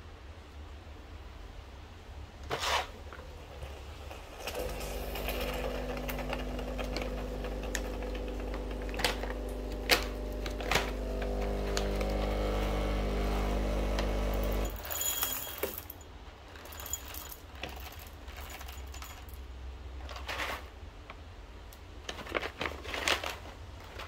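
Breville Barista Pro espresso machine's vibratory pump running with a steady low hum for about ten seconds, growing louder shortly before it cuts off. Light clicks and clatter of items being handled and set down come before and after it.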